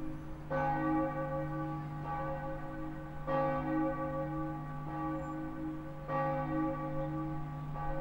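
Deep bell tolling, struck three times about three seconds apart, each stroke ringing on over a steady low drone.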